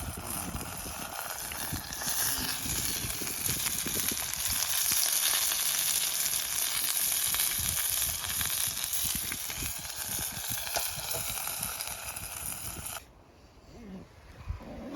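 Food frying in a camp pan, a steady sizzle that cuts off suddenly about 13 seconds in, with wind buffeting the microphone underneath.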